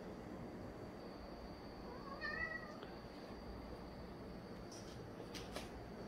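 Ragdoll cat meowing once, a short call about two seconds in.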